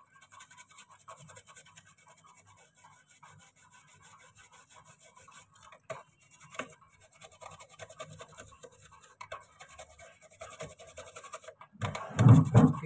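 A small brush scrubbing a mobile phone's circuit board wet with thinner: faint, rapid scratchy brushing strokes, cleaning the board.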